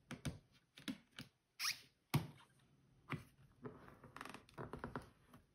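Quiet handling sounds of a MISTI stamp positioner: light clicks and taps as its hinged clear door is swung shut and pressed down to re-stamp the image, with a brief scrape about a second and a half in, a sharper knock about two seconds in, and a run of small taps near the end.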